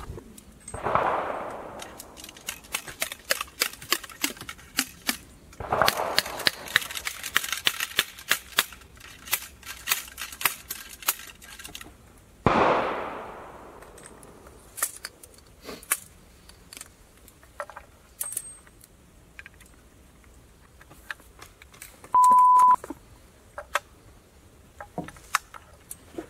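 Muzzle-loading a patched oversized ball into a model 1807 Jägerstutzen flintlock rifle: a long run of sharp knocks and clicks from the mallet, ball starter and ramrod working at the muzzle, densest in the first half, with two louder scraping swells, then sparser lighter clicks. Near the end a short steady beep.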